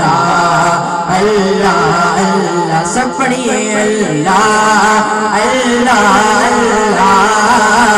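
A boy singing a devotional Islamic chant (naat/zikr) through a microphone, his high voice winding through long melismatic phrases. A steady low drone holds underneath it.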